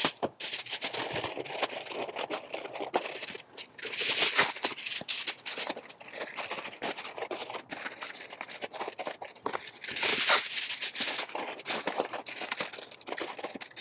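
Aluminium foil crinkling and crackling as a sheet is laid over a foil pan and crimped down around its rim, with louder bursts about four seconds in and again about ten seconds in.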